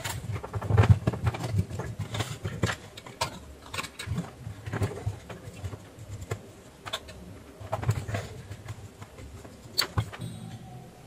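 Screwdriver and small screws clicking and tapping irregularly while a heat sink is unscrewed from a circuit board, with a few duller thumps from handling the board.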